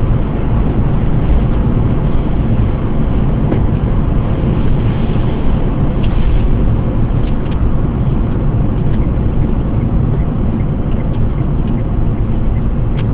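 Steady road and engine noise inside a moving car, with a few faint clicks.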